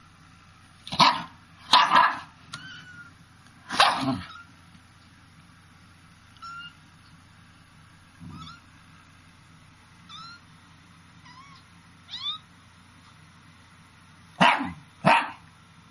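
Short, loud animal calls: three within the first four seconds and two more near the end, with faint short squeaky chirps in between.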